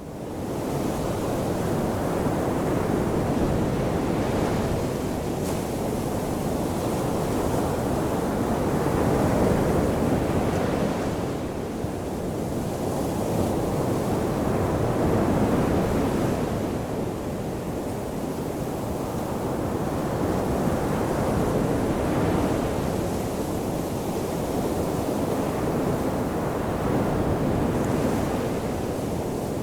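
Ocean surf washing onto the shore as a continuous rushing wash. It swells and eases with each wave, about every six seconds, after fading in from silence at the start.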